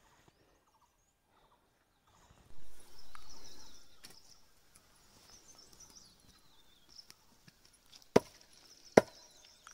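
Faint outdoor ambience with high birds chirping, after a couple of seconds of silence and a brief rustling noise. Near the end come two sharp knocks, less than a second apart.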